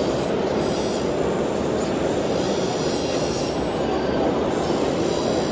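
Remote-controlled model construction machines working: a steady mechanical noise with a thin, high-pitched whine that starts and stops a few times as the hydraulic arms move.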